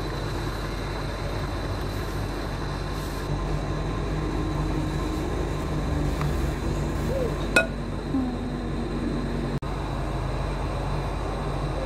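Induction cooker running: a steady low hum and rumble from its fan, with a faint high-pitched whine, and one sharp click about halfway through.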